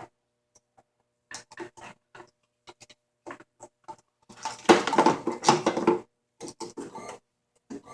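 Irregular scraping and clicking handling noises, with a louder, denser stretch of rustling about halfway through.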